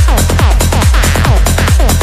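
Electronic dance music with a deep kick drum that drops in pitch on each beat, a little over two beats a second, under a dense, bright synth layer.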